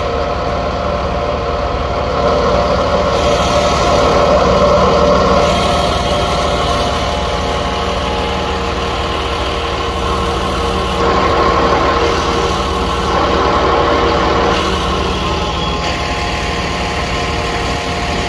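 Jet fuel truck's engine idling and its fuel pump running, a steady hum with several tones. Twice, for a few seconds each, there is a louder rushing as jet fuel flows from the nozzle into a bucket.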